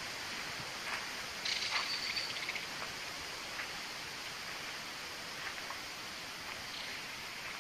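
Outdoor swamp ambience: a steady hiss, with a short burst of clicks and a brief high chirp about a second and a half in, and a few faint ticks later.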